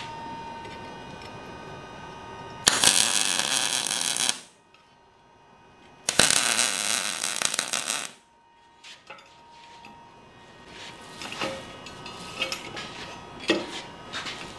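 Welding arc crackling in two runs of about two seconds each, starting and stopping abruptly, with a few light metallic knocks between and after.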